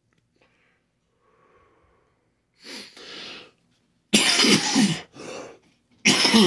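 A man coughing: quiet at first, then a run of about five harsh coughs, two softer ones followed by louder ones from about four seconds in. The smoke of a cigarillo on a throat still sore from a cold sets the cough off, in the smoker's own account.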